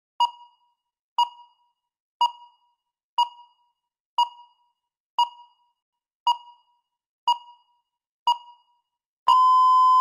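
Countdown timer beeping once a second, nine short electronic beeps, then one long beep of about a second near the end marking that preparation time is up and speaking time begins.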